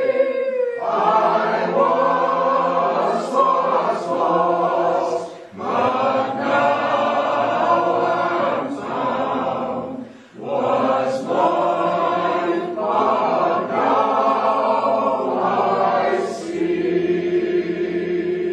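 Choir singing in long held phrases, with short pauses between phrases about five and ten seconds in.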